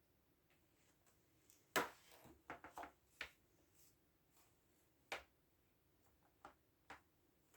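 Sparse, irregular computer-keyboard key clicks, a few single presses and one quick run of four or five, with a louder knock about two seconds in.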